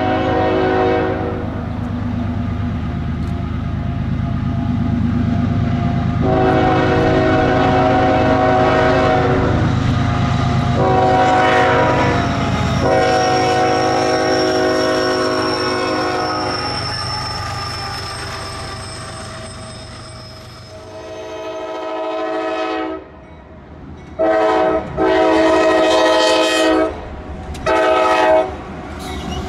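CSX diesel freight locomotives sounding their air horns for a grade crossing. The intermodal train blows long blasts over its engine and rolling cars, the horn's pitch dropping as the locomotive passes. Near the end a second train blows a short, a long and a short blast.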